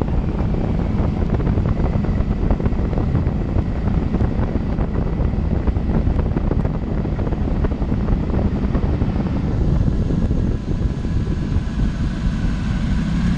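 Twin-turbocharged Rover 3.9-litre V8 in an off-road buggy running steadily under way, heard close up from the open cockpit, with wind on the microphone and the chassis rattling over a gravel track.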